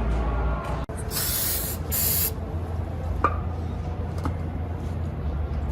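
Two short bursts of spray hissing, the first about a second in and the second just after it, followed later by a couple of light clicks.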